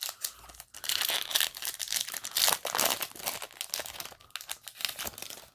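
Foil trading-card booster-pack wrapper crinkling as it is handled and the cards are pulled out, a dense run of crackles that stops abruptly.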